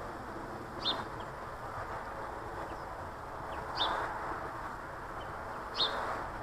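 Garden birds giving short, sharp chirps, three louder ones spaced two to three seconds apart with fainter ones between, over a steady background hiss.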